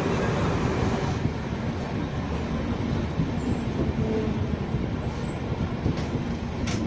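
Shatabdi Express passenger train moving slowly out of the station, heard from aboard: a steady rumble of wheels on rails, with a sharp click near the end.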